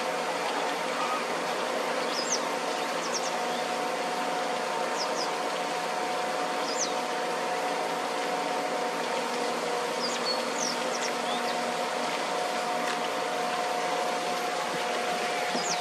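Outdoor ambience: a steady hiss and a low steady hum, with short high bird chirps scattered every second or two.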